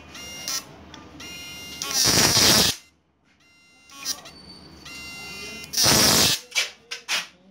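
High-voltage arcing from a 12-transistor analog inverter's output lead struck against a metal plate during a spark test. There are two loud crackling bursts, about two and six seconds in, then a few short snaps near the end, with a steady buzzing hum between them.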